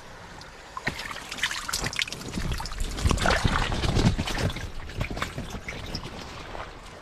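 Wet handling of a fresh catch of fish: water trickling and splashing with irregular wet rustling and slapping as the fish go into a plastic-lined sack. It is busiest and loudest from about three to four and a half seconds in.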